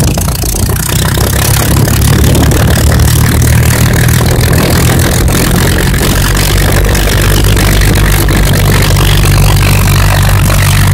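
Supermarine Spitfire's V12 piston engine running steadily on the ground, a deep even drone.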